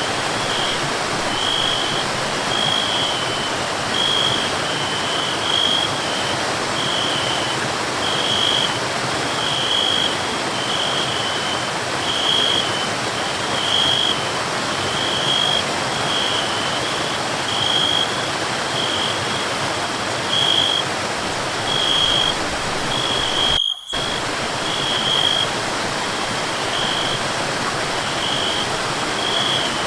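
Waterfall water rushing steadily, with a short high chirp repeating about once a second over it. The sound cuts out for a split second about 24 seconds in.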